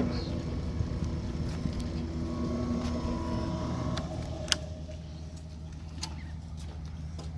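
Small boat's engine running steadily at low speed, with a few sharp knocks, the loudest about four and a half seconds in.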